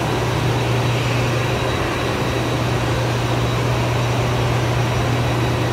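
A steady machine drone with a strong low hum, unchanging in level.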